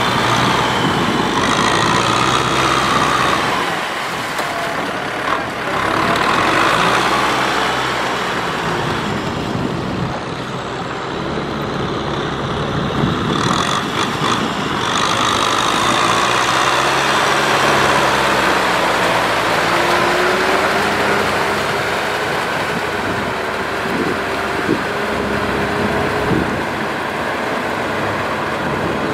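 Kubota M6040SU tractor's diesel engine running steadily under load as it drives a rotary tiller through flooded paddy mud. A steady whine joins for several seconds about two-thirds of the way through.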